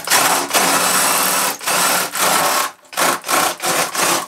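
Cordless drill with a spade bit boring a hole through a wooden panel. It runs in bursts: a long one of about a second and a half, another of about a second, then several short ones near the end.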